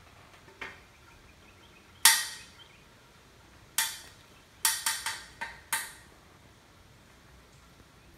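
Sharp clicks and snaps from a finger working 3M 5200 sealant into a minivan's roof-ditch seam. There is a loud one about two seconds in, then a quick cluster of five between about four and six seconds.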